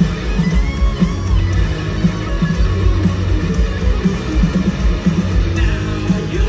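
Live rock band playing through an arena sound system: electric guitars over a steady, regular drum beat, heard loud from among the crowd.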